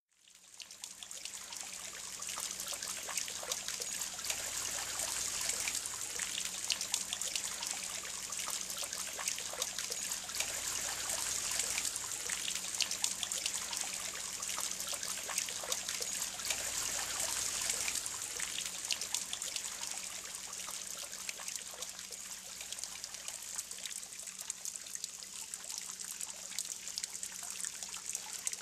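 Small pond fountain splashing and trickling steadily into the pond water, fading in over the first couple of seconds, with a faint steady low hum underneath.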